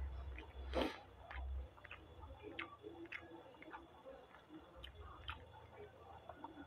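Close-up chewing of a sandwich: scattered soft wet mouth clicks and smacks, with one louder smack just under a second in.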